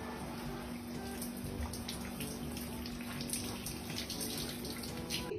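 Water running and spraying, a dense steady rush with a steady low hum underneath.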